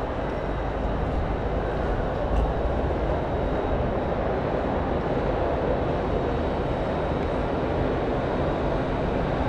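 Steady rumbling hiss of railway station ambience, with no distinct events.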